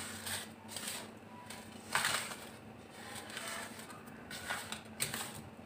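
Hands rubbing a dry flour and ghee mixture in a metal bowl: soft, irregular rustling and scraping, the loudest stroke about two seconds in.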